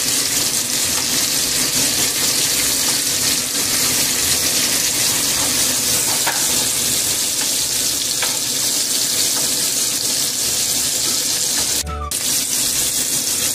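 Shrimp sizzling steadily in hot oil in a nonstick frying pan as they are turned with tongs, with a couple of light clicks of the tongs against the pan. The sizzle breaks off briefly near the end.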